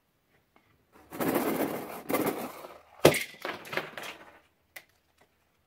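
Small plastic beads pouring out of a balloon onto slime in a glass bowl, with a sharp crack about three seconds in, then more pouring and a few small clicks near the end.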